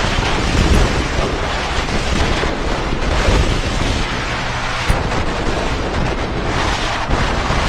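Wind buffeting the microphone of a camera on a motorcycle at riding speed: a loud, steady rush with a heavy low rumble.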